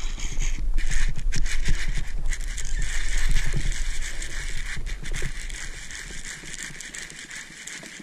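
Wind buffeting the microphone with a deep rumble, mixed with scattered knocks and rattles, easing off over the last few seconds.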